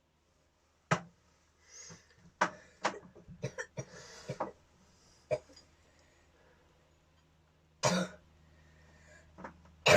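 Hand work on a diesel engine's exposed valve gear: a scattered run of short sharp metal clicks and knocks from tools and rocker or push-rod parts, then a cough about eight seconds in.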